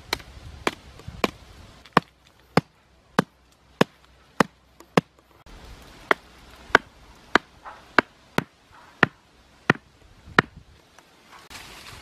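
A hand-held stone pounding the top of a bamboo stake to drive it into the ground: about sixteen sharp knocks, roughly one every 0.6 s, with a short pause near the middle, stopping well before the end.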